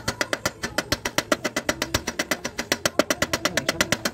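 Chipping hammer rapidly knocking slag off a fresh stick-weld bead on thin steel square tubing, about eight sharp, evenly spaced knocks a second.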